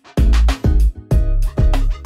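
Background music with a steady beat: heavy bass hits about twice a second under pitched instrument notes.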